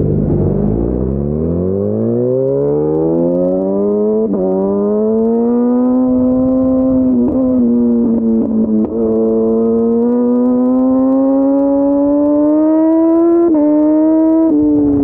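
Yamaha FZ1's inline-four engine pulling under acceleration. Its pitch climbs steeply over the first few seconds, then holds high and keeps rising slowly, with several short dips in pitch along the way.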